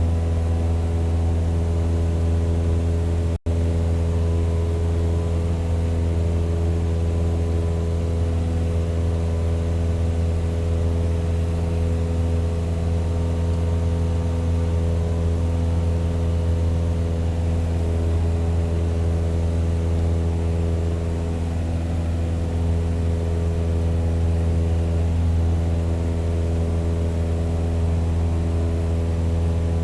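Propeller airplane engine running at steady power, an even, unchanging drone, with a split-second dropout about three seconds in.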